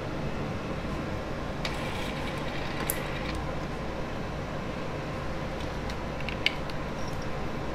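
Steady hum of workbench equipment, with a stretch of faint scraping and a few light ticks from small metal tips and parts being handled on a circuit board.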